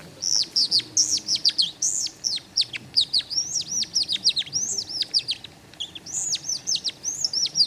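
A hand-held bird lure, a small cylinder twisted between the fingers, giving a fast, unbroken run of high chirps and short down-sliding notes in imitation of a skylark's song.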